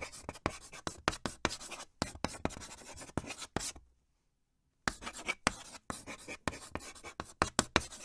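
Chalk scratching on a chalkboard in quick, irregular short strokes, like handwriting, with a pause of about a second midway.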